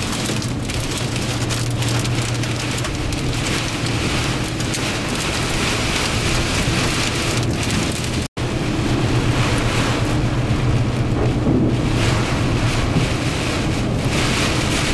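Heavy rain pelting the car's windshield and roof, heard from inside the cabin, over a steady low drone from the moving vehicle. The sound cuts out for an instant a little past halfway.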